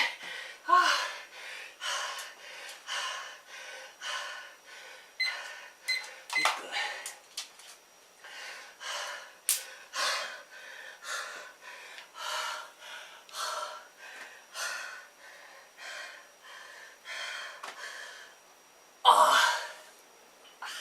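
A man panting hard after a set of push-ups: quick, loud breaths in and out, about two a second, with one louder, harsher exhale near the end.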